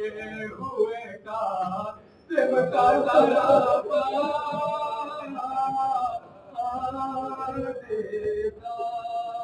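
A man's solo voice chanting an Urdu marsiya (a lament) in a slow, melismatic style, holding long wavering notes. There is a short breath pause about two seconds in.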